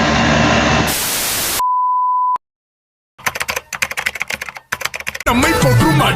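A sequence of edited sound effects: running machine noise cuts to a short burst of static hiss, then a steady beep of under a second. After a brief silence comes rapid clicking like typing on a keyboard, and music starts near the end.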